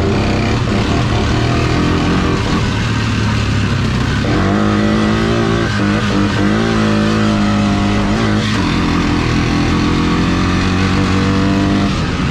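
Honda four-wheeler's engine running under way as it is ridden. Between about four and eight and a half seconds in, its note grows stronger and its pitch rises and falls with the throttle.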